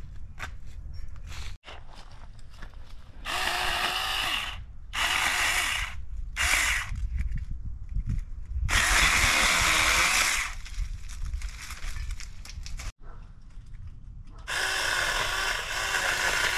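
Saker mini battery-powered electric chainsaw cutting through small shrub branches in five short bursts. Its motor whine rises and falls under load. The longest burst is about 9 seconds in, and the last starts near the end.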